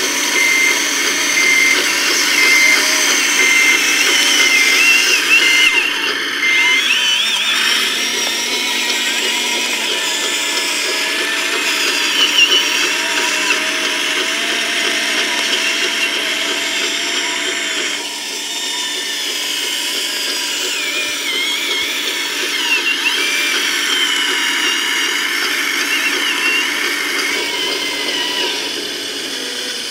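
Small electric motors and hydraulic pump of a 1:14 scale RC Liebherr crawler loader whining, the pitch shifting as it works the bucket. A regular warning beep sounds for the first seven seconds or so, then stops.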